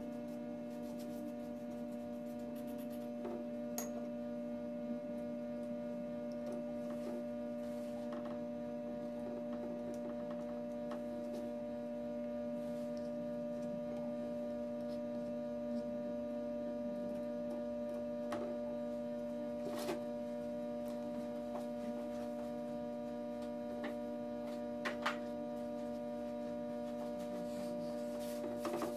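Steady electrical hum made of several fixed tones, with faint scattered clicks and taps from small pieces being handled on the board.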